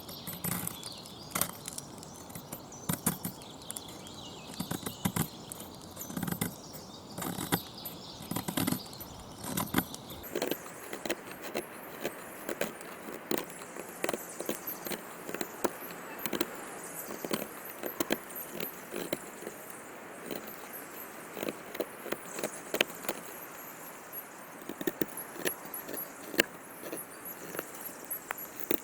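Knife blade shaving and scraping along a hard wooden stick in many short, uneven strokes, from a wavy-edged Victorinox Soldier blade that is not biting well into the wood.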